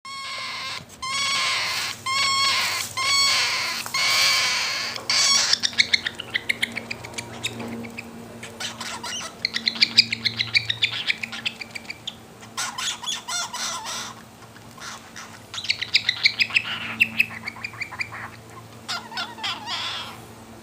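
Young cockatiel begging for food: about four long, harsh squawks, then fast pulsing chatter in stretches while it is being fed.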